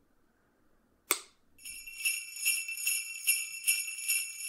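A single sharp click about a second in, then jingle bells shaken in a steady rhythm, about two or three shakes a second, starting about a second and a half in.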